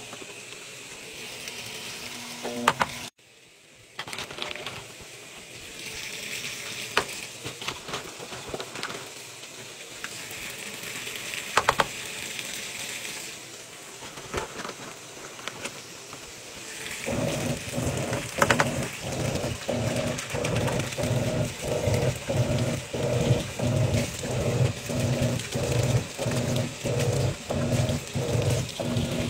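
Water pouring and splashing into a top-loading washing machine's drum over the clothes, with handling clicks. A little over halfway through, a louder humming sound pulsing about twice a second joins as the washer agitates the load.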